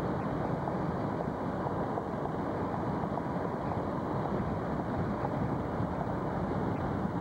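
Steady road and wind noise from a moving car, an even rush with no distinct events.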